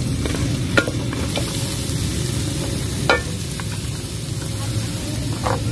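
Sliced onions sizzling as they fry in hot oil in a metal pan, with ginger and garlic, and being stirred. A few sharp clinks against the pan, the clearest about one second and three seconds in.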